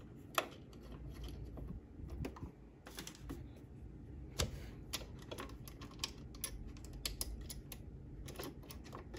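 Faint, irregular small clicks and taps of a metal needle plate and tiny screws being handled and set back in place on a Brother XL5340 sewing machine.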